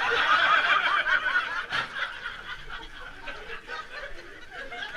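A group of people laughing, loudest in the first second or so, then dying down to quieter chatter. A single sharp click just under two seconds in.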